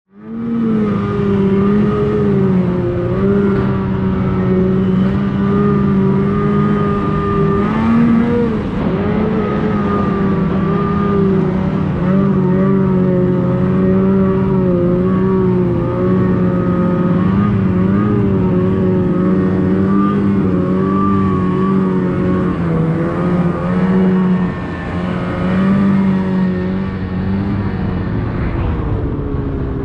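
Ski-Doo Summit XP snowmobile's two-stroke engine running steadily under way, its pitch rising briefly about eight seconds in.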